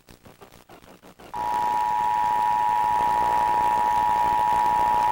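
Emergency Alert System attention signal: two steady tones sounding together, coming on sharply about a second in and holding unchanged. It is the alert tone of a broadcast test of the system.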